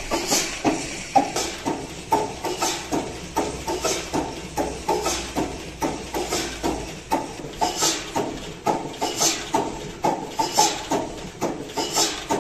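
Large vintage Dutch diesel engines running slowly, a steady, even beat of knocks from their firing strokes and valve gear.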